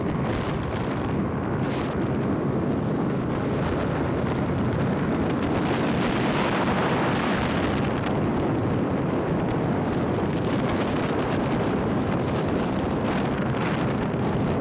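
Steady wind rush and buffeting on the microphone of a moving vehicle, probably a motorcycle, with engine and tyre noise underneath.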